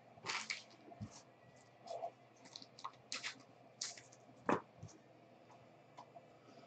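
Trading cards being shuffled and flipped through by hand: faint, scattered clicks and rustles of card stock, with one sharper click about four and a half seconds in.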